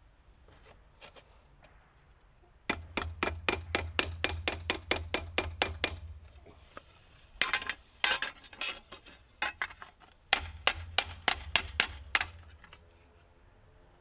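Hammer pounding a dent out of the treadle grinder's metal seat: three runs of rapid, sharp blows, about five a second, with short pauses between them.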